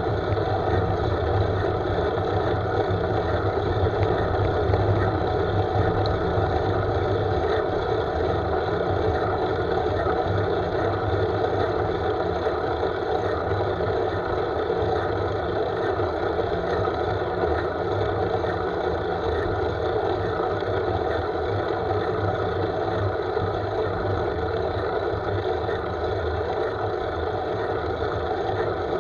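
Steady rush and rumble of wind on a handlebar-mounted camera's microphone as a road bike rolls along the road at speed, with road noise from the tyres.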